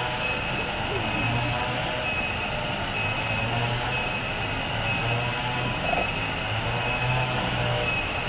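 Cicada chorus: a steady, shrill buzz on several high pitches, pulsing about once a second.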